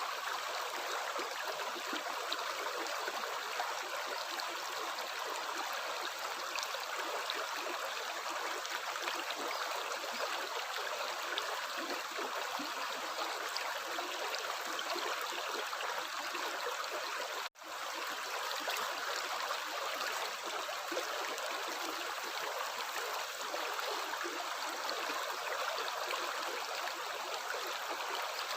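Running water of a stream, a steady even rush that cuts out for an instant about seventeen seconds in.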